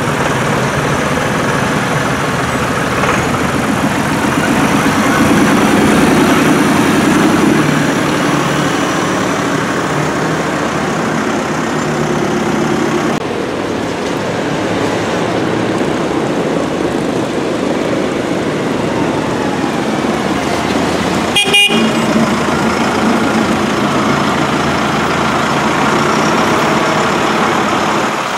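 Diesel tractor engines running as a column of farm tractors drives past on a wet road, loudest as one passes close about six seconds in. A single short horn toot sounds about three-quarters of the way through.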